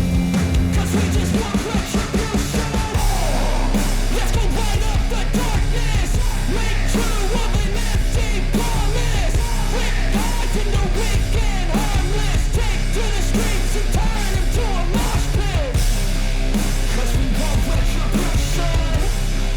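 Loud heavy rock music with shouted, sung vocals over a steady bass line; the full band comes in about three seconds in after a brief dip.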